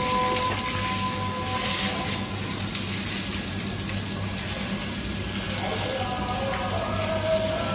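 Water spraying from a hose nozzle onto raw fish flesh and a steel table, a steady hiss and splatter. Background music plays under it.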